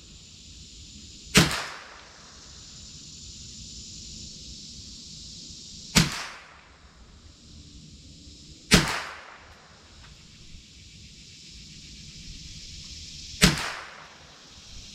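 Four shots from a Marlin Model 60 .22 LR semi-automatic rifle, several seconds apart, each a sharp crack with a short fading tail. They are a test group fired to check the scope's zero.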